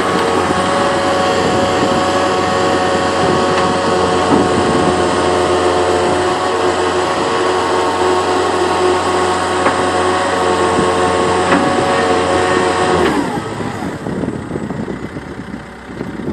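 Caterpillar 247B tracked skid steer's diesel engine running hard with a steady whine. About thirteen seconds in, the whine stops and the engine drops back, running more quietly.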